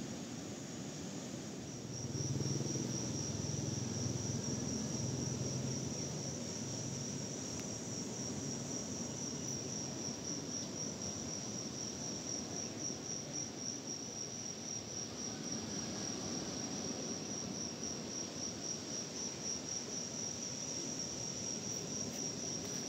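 Crickets chirping in a steady, pulsing high trill that sets in about two seconds in, over the low wash of surf. A low hum rises at about the same moment and fades a few seconds later.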